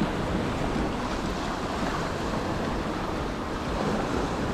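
Sea surf washing and foaming through narrow channels between coastal rocks, a steady rush of water, with wind buffeting the microphone.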